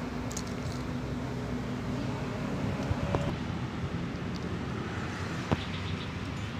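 Steady low background rumble, like road traffic, with a few light clicks and taps; the sharpest tap comes about five and a half seconds in.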